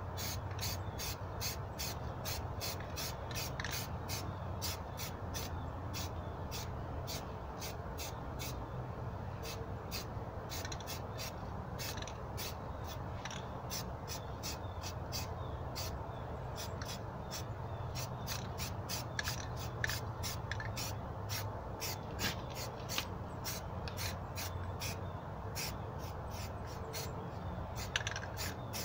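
Sharp clicks repeating about three times a second, over a steady low hum.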